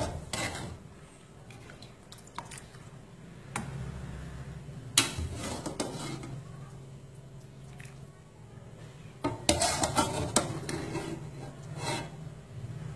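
Metal ladle clinking and scraping against the side of a stainless steel soup pot while stirring and ladling soup. The knocks come irregularly, with a quick run of clinks about three-quarters of the way through.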